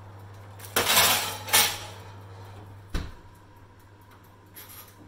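A metal baking tray scrapes and clatters twice as it slides onto an oven rack. About three seconds in comes a single heavy knock as the oven door shuts.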